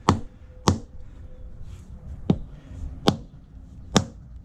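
Rubber mallet knocking on a Pennsylvania bluestone flagstone, five sharp knocks at uneven intervals, tapping the stone down into its mortar bed.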